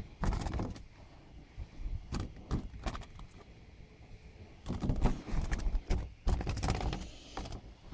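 Irregular knocks, clicks and rustling handling noises, in a cluster near the start and again from about five to seven and a half seconds in.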